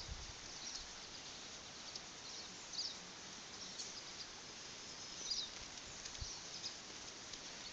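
Quiet outdoor ambience with faint, scattered high chirps of small birds calling, and a soft low thump about six seconds in.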